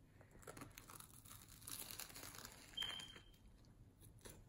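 Crusty baguette of a banh mi crunching and crackling faintly as it is bitten and chewed. A brief high-pitched beep sounds about three seconds in.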